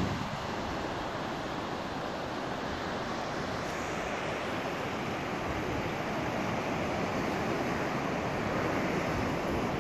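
Sea surf washing over a rocky shore: a steady rush of water noise that grows slightly louder toward the end.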